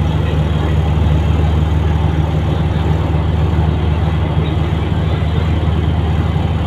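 Passenger train running along elevated track, heard from inside the coach: a steady low drone over even wheel-and-rail noise, with no gaps or clicks.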